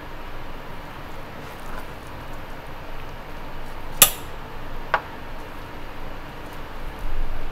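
Two sharp clicks about a second apart, the first the louder, as a side of yellowtail is handled on a cutting board, over a steady kitchen hum.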